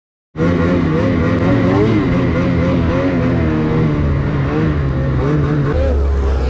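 Lynx Boondocker snowmobile's 850 E-TEC two-stroke engine running under throttle, its pitch wavering up and down as the sled rides through the snow. It cuts in abruptly just after the start.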